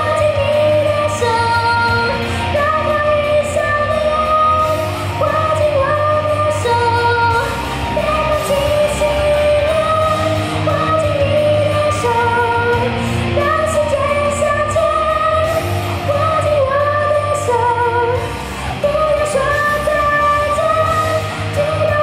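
Female vocalists singing a pop song live into microphones over an instrumental track with a steady drum beat.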